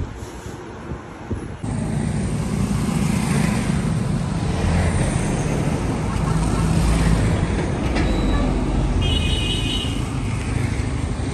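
Roadside traffic noise: a steady low rumble of passing vehicles, with a short high-pitched tone about nine seconds in.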